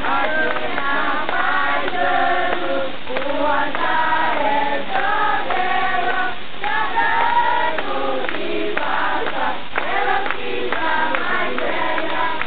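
A group of people singing together in chorus, several voices holding and moving between sung notes.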